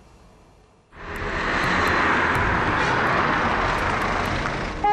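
Loud, steady engine roar that comes in abruptly about a second in and eases slightly toward the end.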